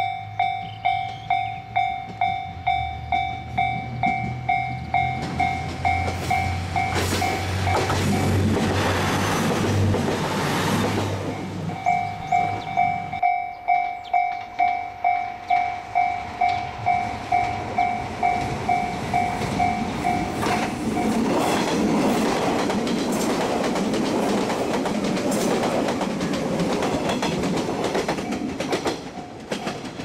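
Japanese level-crossing alarm ringing in an even ding-ding about twice a second, over the low running of a diesel railcar's engine. After a cut about 13 s in the alarm rings on, then stops about 21 s in as a train runs past, its wheels clattering loudly on the rails.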